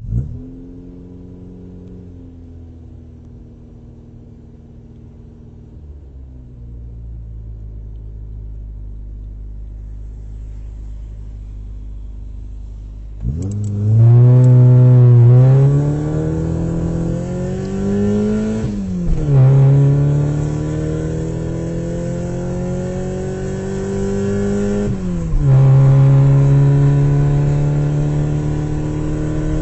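Car engine idling low and steady, then about 13 seconds in it revs up and pulls away, accelerating through the gears. The engine note climbs in pitch, drops at each gear change about 19 and 25 seconds in, and climbs again.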